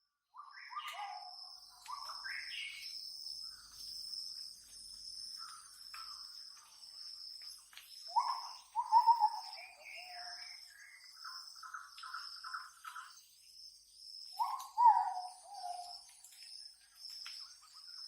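Birds singing in a forest: short whistled phrases that fall in pitch, repeated several times, loudest about halfway through and near the end, over a steady pulsing high insect chirp.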